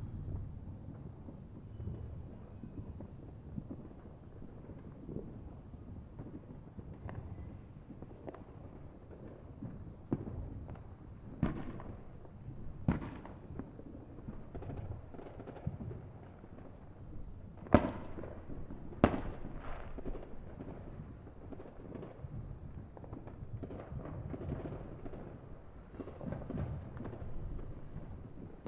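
Distant fireworks: scattered sharp bangs and pops over a low rumble, a cluster of louder reports just past the middle with the loudest single bang among them.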